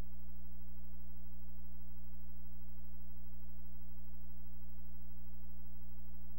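Steady electrical hum with many evenly spaced overtones, strongest in the low bass, holding at one pitch and level without change.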